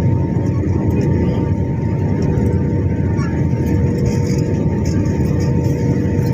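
Airliner cabin noise during the landing approach: a steady, dense rumble of the jet engines and airflow, with a thin steady hum on top.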